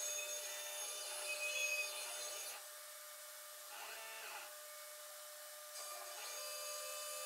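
CNC router running an engraving job in plywood: the spindle motor whines steadily while the NEMA 23 stepper motors driving the axes add tones that shift and glide in pitch as the head moves. It goes quieter for a few seconds in the middle, then picks up again.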